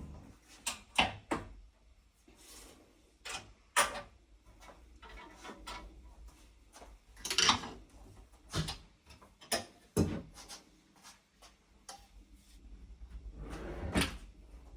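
Household handling sounds: a string of irregular knocks, clicks and clatters, with a longer scrape about seven and a half seconds in, as things are moved and set down.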